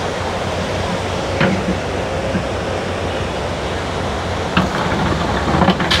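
Ocean surf breaking on a sand beach: a steady wash of wave noise, with a low steady hum underneath.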